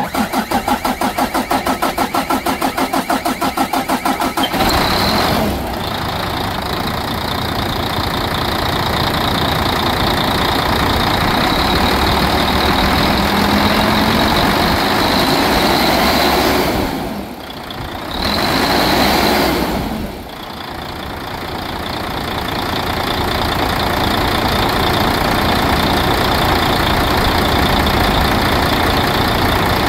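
Volvo truck diesel engine cranking on the starter at about seven pulses a second, catching after four to five seconds and then running steadily. The level dips briefly twice near the end.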